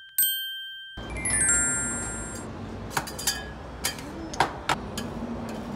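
A bright ding that rings out for about a second, then a quick descending run of chime notes like a sound effect, followed by steady background bustle with several sharp clicks and clinks.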